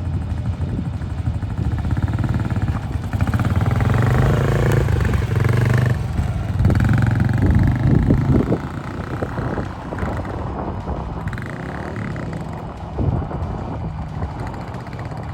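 Small pit bike engine running and revving, loudest through the first half and quieter after about eight seconds.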